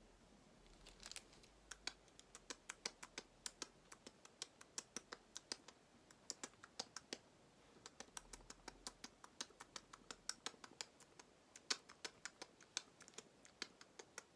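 Light, sharp clicks and taps, a few a second at an uneven pace with a short pause in the middle, from a golden hamster moving and handling things at close range.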